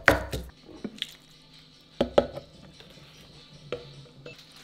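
Wooden pestle pounding in a clay mortar, crushing garlic and chili for Thai papaya salad: a hard thud at the start, a pair of strikes about two seconds in, and lighter taps between.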